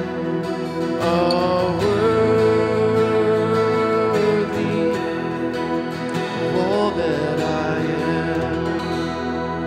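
A man singing a slow worship song with long, held notes over his own strummed acoustic guitar.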